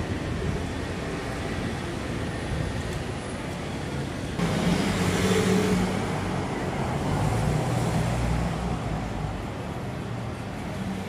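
Steady city street traffic noise from passing cars and scooters. About four seconds in, the sound jumps abruptly louder and changes character, with a low hum for a few seconds.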